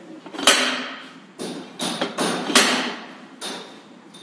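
About five sharp metal knocks and clanks with short ringing tails, the loudest about half a second and two and a half seconds in, from the die head of an SQ100F 4-inch electric pipe threading machine being worked by hand to adjust the thread size.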